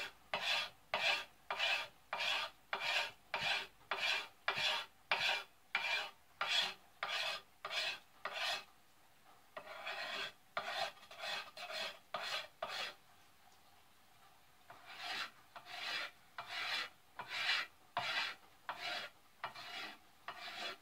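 Spine of a knife scraping the factory varnish off a store-bought wooden axe handle, in quick repeated strokes of about two a second, with two short pauses.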